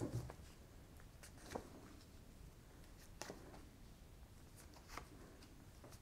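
Tarot cards being shuffled and handled by hand: a handful of faint, short rustles and soft snaps of card stock, spaced irregularly a second or two apart.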